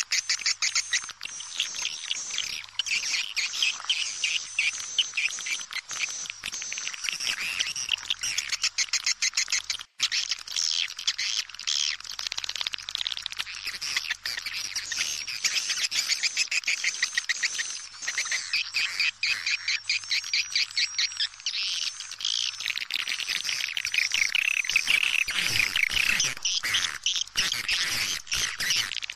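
Many swiftlets chirping and twittering densely and without pause: a swiftlet call recording of the kind played to lure the birds into a nesting house. There is a momentary break about ten seconds in.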